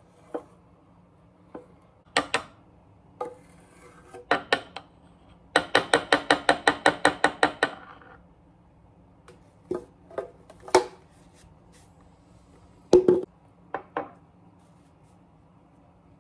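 A metal spoon clinking and scraping against a blender jar and a glass mason jar while peanut butter is spooned out. It comes as scattered single knocks, with a quick run of about a dozen taps, some six a second, midway through.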